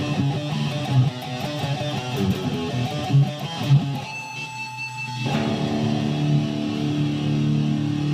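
Guitar music: a busy run of changing notes, a short sparse gap with a thin high tone about four seconds in, then a chord held and left ringing from about five seconds in.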